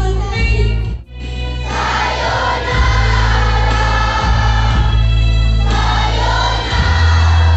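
Children's choir singing together over music with a heavy steady bass. The sound drops out briefly about a second in, then the voices come back in full.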